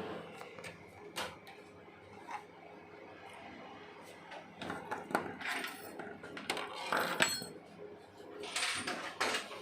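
Irregular clicks, taps and light clinks of small hard objects being handled and set down, busier in the second half.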